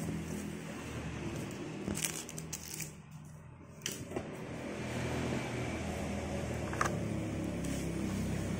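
A few taps and scrapes of cardboard boxes and a plastic-blistered diecast toy card being handled, over a steady low hum that fades briefly in the middle.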